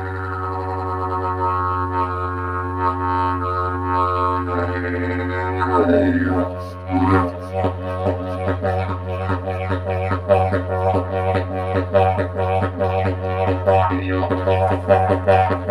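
Didgeridoo played with a steady low drone. About six seconds in the tone sweeps and shifts, then the drone turns into a quick, even rhythmic pulse.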